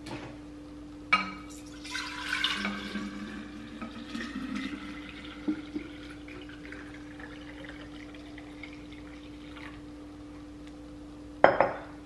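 Cold brew coffee poured from a glass measuring cup into a glass carafe, splashing in for a few seconds and then trickling more quietly. Near the end there is a sharp knock as glass is set down on the stone counter. A steady low hum runs underneath.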